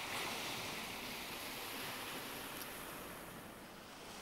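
Faint rushing hiss that swells up at the start and slowly fades away.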